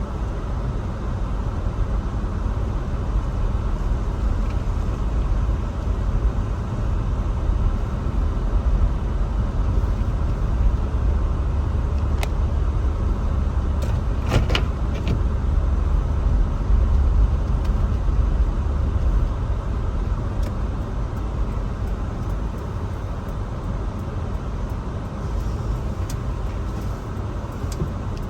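Car driving: a steady low rumble of engine and tyres, with a few sharp clicks about halfway through.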